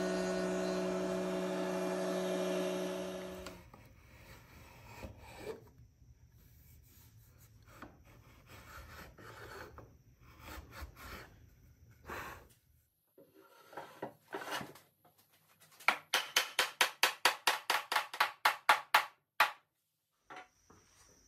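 Router-table router running steadily for about three and a half seconds as a cherry board is fed along the fence. Then soft scraping strokes of a brass shoulder plane trimming the sliding dovetail. Near the end comes a fast run of about twenty sharp mallet taps on the batten seated in the tabletop's tapered sliding dovetail, testing for rattle; no rattle means a tight joint.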